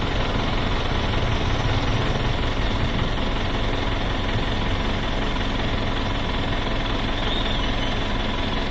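Steady, even rushing of the Godavari's fast-flowing floodwater, with a faint low hum under it.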